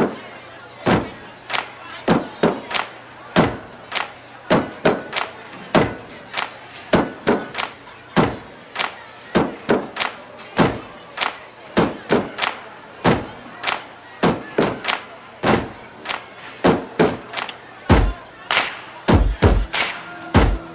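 A long run of sharp thumps and knocks, two or three a second at an uneven pace, over a low steady hum.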